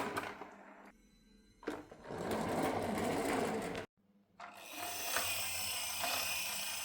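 Marbles rolling down a wooden marble run, a steady rattling roll. It comes in two stretches: the first is cut off abruptly near the middle, and the second starts again about half a second later.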